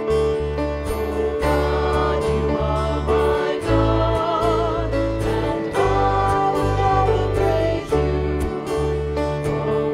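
Praise song: a singing voice with vibrato over sustained instrumental chords and a steady bass line.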